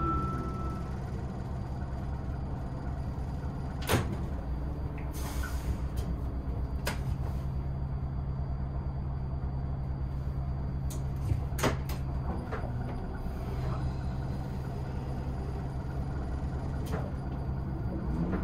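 City bus engine idling steadily while the bus stands still, heard from inside the cab, with a brief hiss of air about five seconds in and a few sharp clicks.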